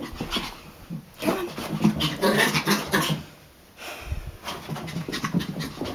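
Chihuahua panting rapidly in two runs, the second starting shortly after a dull thump a little past the middle.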